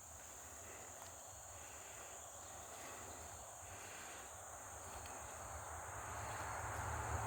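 Faint, steady high-pitched trilling of insects such as crickets, over a low engine rumble that grows steadily louder toward the end as it approaches.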